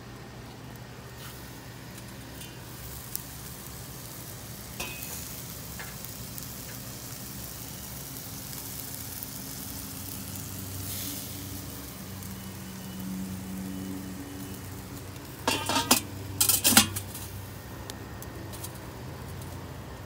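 Ribeye and filet steaks sizzling on the charcoal grate of a small Weber kettle grill. About three-quarters of the way through comes a short run of loud metal clanks as the lid goes back onto the kettle.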